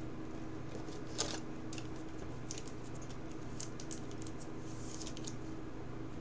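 Faint scrapes and light clicks of a trading card being handled and slid into a rigid clear plastic card holder, over a steady low hum.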